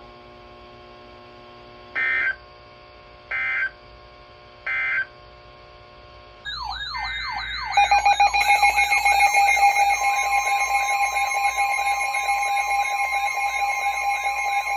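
Emergency alert broadcast tones: three short, evenly spaced data bursts like the end-of-message code of a weather-radio alert, then about six seconds in loud alarm tones start, wailing siren-like sweeps over steady tones, as a new alert begins.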